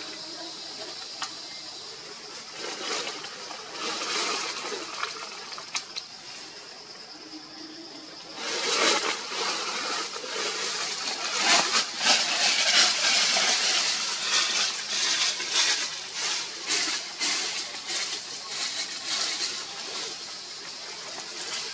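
Leaves and branches rustling and crackling in a tree canopy, louder from about eight seconds in, over a steady high insect drone.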